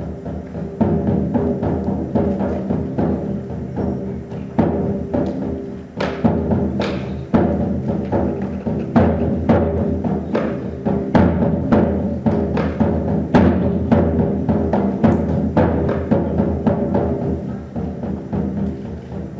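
Music: drums struck again and again in an irregular rhythm over steady low held notes.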